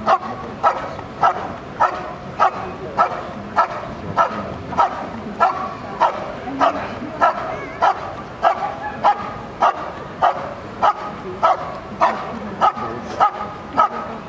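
German Shepherd dog barking steadily and rhythmically at a protection helper, under two barks a second without a break. This is the hold-and-bark at the blind in IPO protection work, where the dog holds the helper in place by barking.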